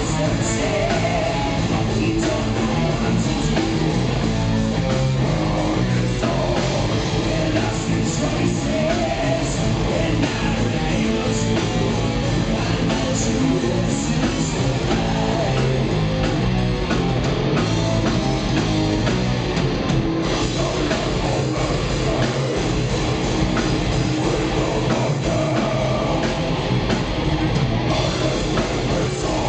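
A metal band playing live at full volume: distorted electric guitars, a drum kit and a singer's vocals.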